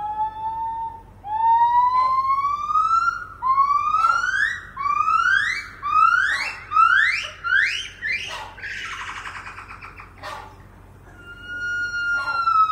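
Buff-cheeked gibbons singing: a run of loud whistled hoots, each rising in pitch, coming shorter and faster until they break into a rapid twitter about eight seconds in. After a short pause, a long high note slides gently downward near the end.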